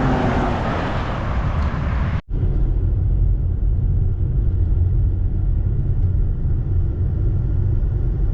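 Car driving, a steady low rumble of engine and tyres on the road. For about the first two seconds a loud rushing hiss sits over it, then the sound cuts off abruptly for an instant and the low rumble carries on alone.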